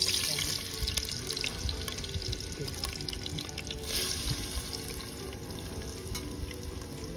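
Turmeric-and-salt-rubbed chicken pieces sizzling in hot oil in a pot as they go in, with a fresh surge of sizzling about four seconds in.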